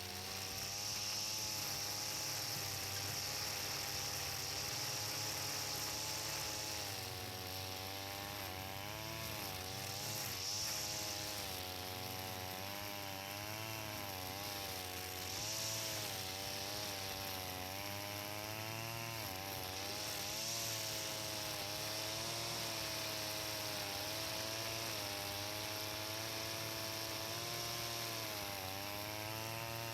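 Engine brush cutter running continuously while cutting grass, its engine pitch rising and falling as the blade bites into the growth and frees again.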